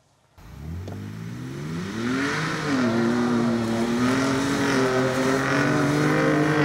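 2023 Ford Ranger Raptor's 3.0-litre twin-turbo V6 pulling away hard with its exhaust in the loud Baja-mode setting. It starts suddenly about half a second in, climbs in pitch for about two seconds, drops back at a gear change, then holds a high, fairly steady note.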